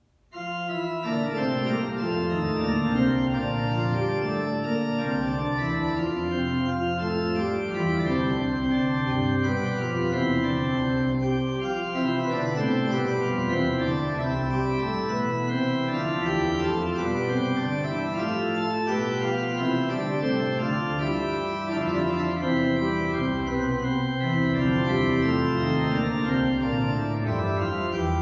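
Church pipe organ playing a piece in sustained full chords, starting abruptly.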